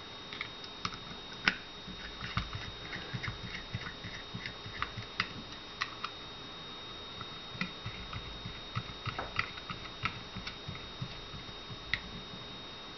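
Light, irregular clicks and taps of a plastic grip panel and small metal parts being handled and seated on a Beretta 21A Bobcat pistol's frame while the grip is screwed down.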